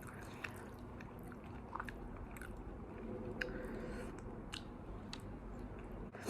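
A person chewing and biting food, faint, with scattered small clicks.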